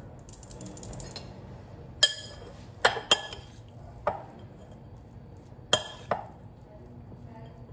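A metal utensil clinking against a glass mixing bowl while orzo and grated carrot are stirred together, about six sharp clinks at uneven intervals, each ringing briefly.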